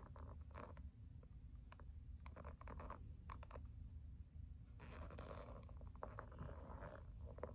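Faint scuffs and scratchy rustles of high-top sneakers moving on carpet as the feet shift and lift, over a low steady room hum.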